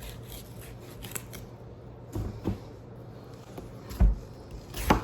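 Watermelon being cut up: light scraping and cutting through the rind, with a few dull knocks, the loudest about four seconds in.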